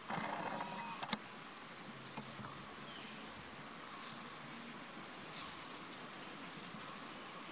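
Insects droning high and steady in forest. In the first second there is a brief rustle, and about a second in one sharp click stands out.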